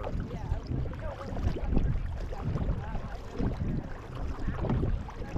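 Several paddles dipping and pulling through the water of a multi-seat racing canoe, stroke after stroke as low splashing thumps, with wind buffeting the microphone.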